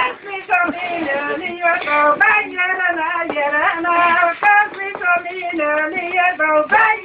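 A woman singing a melody in long held notes with small wavers in pitch.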